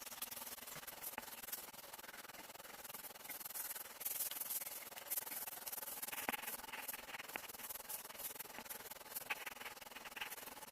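Dry scraping and rustling with scattered small clicks, louder from about four seconds in.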